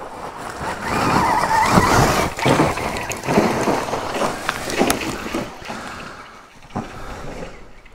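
Stark Varg electric dirt bike powering up a steep enduro climb with no engine note: the rear tyre spins and claws through dirt and rocks amid knocks and clatter. Loudest about a second in, fading over the last few seconds.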